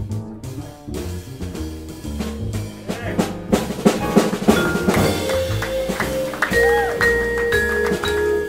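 Live jazz quartet playing: upright bass walking, drum kit and piano, with a busy drum passage about three seconds in. After that the vibraphone rings out long held notes.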